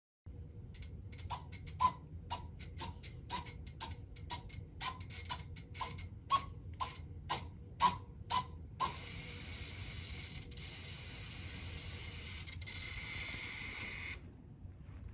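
Sharp ticks at a steady two per second for about eight seconds, then a steady hiss for about five seconds before it drops away.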